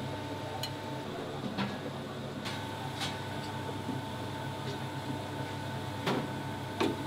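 Restaurant kitchen room tone: a steady low hum of running equipment with a faint steady whine, and a few light clicks and clinks scattered through.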